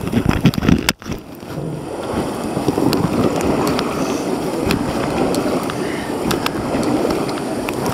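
Steady rushing of river water around a whitewater paddle raft, with scattered small sharp ticks; a brief break about a second in.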